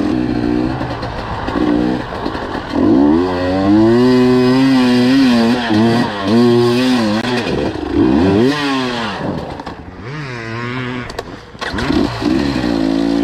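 Two-stroke enduro dirt bike engine revving hard under load on a steep hill climb. Its pitch sweeps up and down again and again as the throttle is opened and shut, in several surges.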